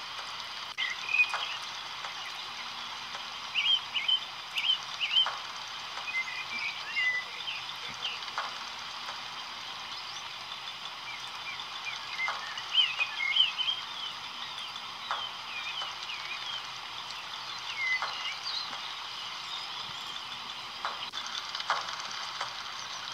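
Short chirping calls, like small birds, in scattered clusters over a steady background hiss, with a few sharp clicks.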